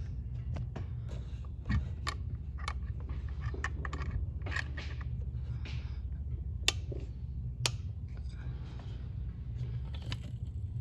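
Scattered light clicks and taps of hand work on the car while the clutch hydraulics are bled, with a few sharper knocks, over a steady low hum.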